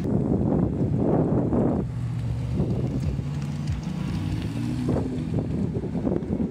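Car engines running, with a steady engine note that rises a little in pitch about five seconds in, and wind buffeting the microphone, strongest in the first two seconds.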